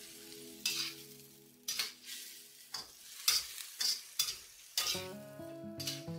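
Slotted metal spatula stir-frying chicken, potatoes and peppers in a wok: a sizzle that surges with each toss or scrape, in repeated strokes. Soft background music plays under it at the start and comes back near the end.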